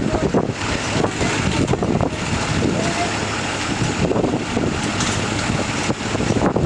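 School bus engines running, with wind buffeting the microphone.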